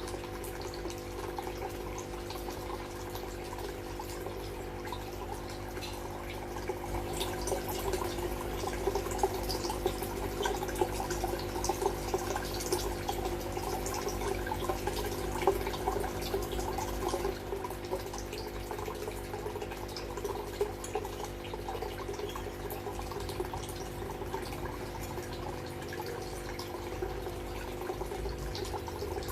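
Aquarium water trickling and dripping over a steady hum of pumps, busier for a stretch in the middle.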